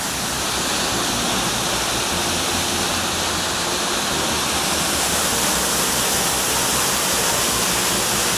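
Mountain waterfall cascading over rocks into a pool below: a steady rush of falling water.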